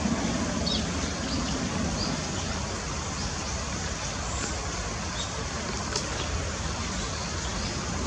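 Eurasian tree sparrows chirping: short, high chirps scattered through, over a steady rush of falling water from the waterfall.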